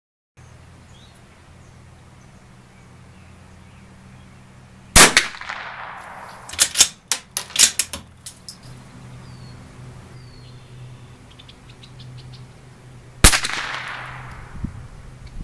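Two shots from a Bergara B14R .22 LR bolt-action rifle, about eight seconds apart, each a sharp crack with a short ringing echo. Between them, a quick run of metallic clicks as the bolt is worked to eject the case and chamber the next round.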